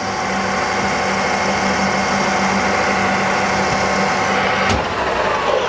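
Metal lathe running, turning a steel workpiece as a light finishing cut is fed by hand: a steady mechanical hum with several held tones. Near the end there is a click and the held tones stop.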